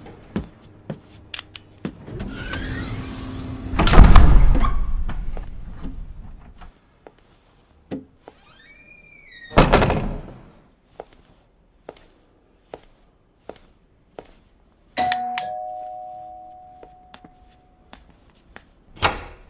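Footsteps on a hard floor, then a doorbell about fifteen seconds in: one chime that rings on and fades over about three seconds. A loud noisy swell comes about three seconds in, and a door clunks near the end.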